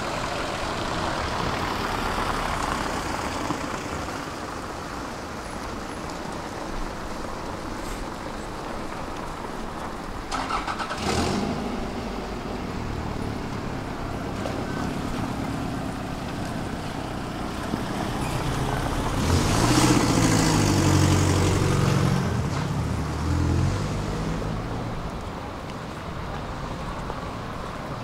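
City street traffic with vehicles passing. A short clatter comes about eleven seconds in. The loudest moment is a heavy vehicle going by about twenty seconds in, with a low engine drone.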